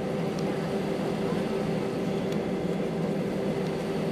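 Steady cabin noise of an Airbus A319 taxiing, its jet engines running at low power with an even low drone under a hiss of air.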